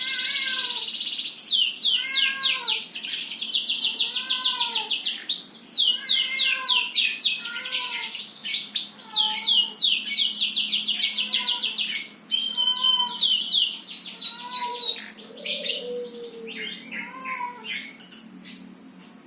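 Songbirds singing together: fast, dense trills of high falling notes, over a lower arching call repeated about once a second. The song fades over the last few seconds.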